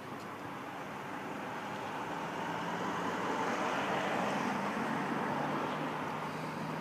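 A vehicle passing close by: a broad rushing noise that swells to a peak about four seconds in and then eases, with a steady low hum underneath.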